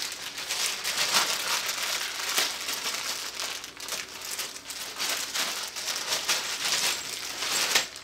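Plastic packaging crinkling and rustling with many sharp crackles as an accessory is unwrapped by hand.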